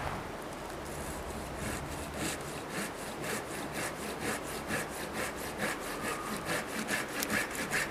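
Hand saw cutting through the wood of a dead fallen tree, with steady back-and-forth strokes that start about a second and a half in and quicken to about four a second near the end.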